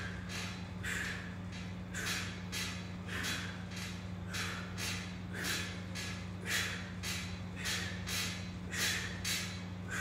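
A man breathing hard and fast through hanging knee raises, with short sharp breaths about twice a second from the exertion. A steady low hum runs underneath.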